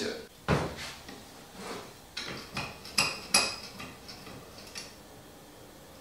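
Sharp metallic clinks and knocks, about nine in all, spread irregularly over the first five seconds, the loudest a pair about three seconds in: a small metal die being set and clamped in a bench vise, the vise's steel handle clinking as it is turned.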